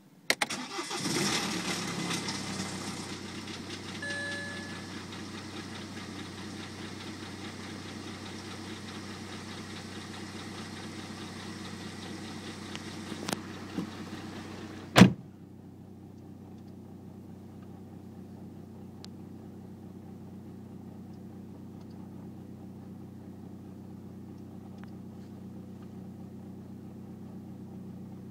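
BMW 118d's N47 four-cylinder diesel starting: it catches at once, runs louder for the first two or three seconds, then settles to a steady idle. About fifteen seconds in a single loud thump sounds, after which the idle is duller.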